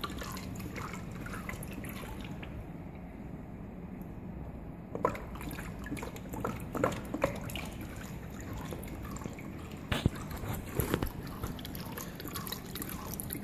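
Clear transformer oil from an X-ray machine's high-voltage tank trickling in thin streams into a plastic bucket already holding oil. From about five seconds in there are scattered sharper drips and splashes.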